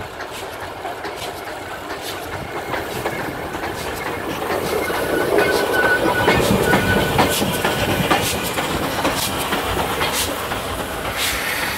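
DT668, a 2-8-2 steam locomotive, rolling slowly past, its wheels clicking over the rail joints; the rumble grows louder as it comes closest about halfway through, then eases.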